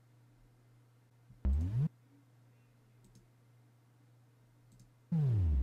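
Faint steady low hum, broken by two short electronic downward pitch sweeps, one about a second and a half in and a louder one near the end that leads into fuller sound.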